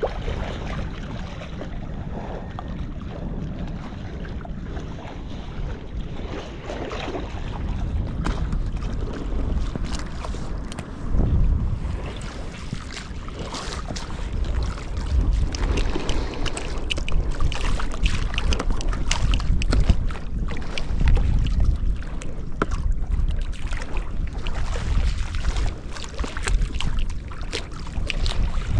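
Wind buffeting the microphone in gusts, heavier from about eleven seconds in, with choppy water lapping and scattered light clicks.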